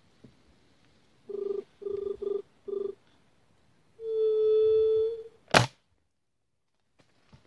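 Low hooting dove call, four short hoots and then one long held hoot, to lure juriti (white-tipped doves), then a single sharp crack from a Jade 5.5 mm spring-piston air rifle firing, a rifle with a weak spring. A couple of faint clicks near the end.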